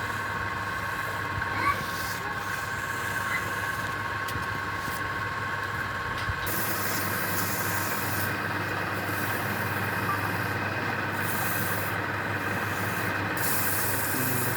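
A machine running steadily, a low hum under several constant whining tones. From about six seconds in, a high hiss comes and goes in stretches of a second or two.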